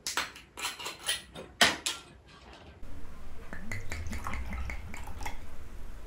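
Tableware clinking: about five sharp clinks in the first two seconds. These are followed by softer handling sounds over a low steady hum.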